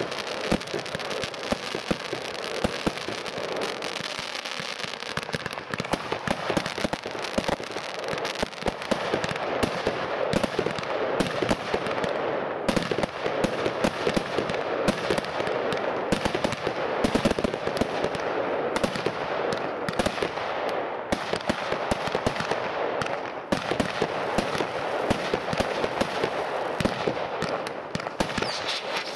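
Weco Power Tec PRO 300.1 compound firework cake firing: tubes launching shots and cracking bursts in rapid, overlapping succession, with no pause.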